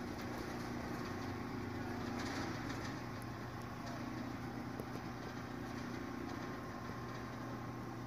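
Schweiss bifold garage door's drive running with a steady hum as the door lowers.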